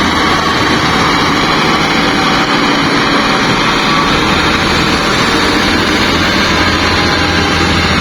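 Sany SY365 excavator's diesel engine running steadily.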